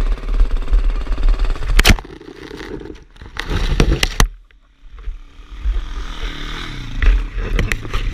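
Dirt bike engine running, then a crash: a loud impact about two seconds in, followed by a cluster of clattering and scraping knocks as the bike and rider go down in the brush, then a brief lull.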